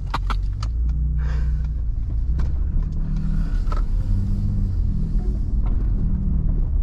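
2020 Ford Raptor's twin-turbo V6 engine pulling the truck over rough dirt, heard from inside the cab as a deep rumble whose note steps up and down in pitch. A few sharp knocks come near the start.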